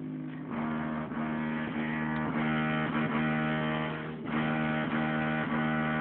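Music with strummed guitar playing through a Volkswagen Gol's car stereo.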